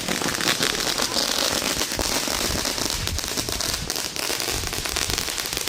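Fireworks going off in a dense, continuous crackle of many small pops and bangs close together.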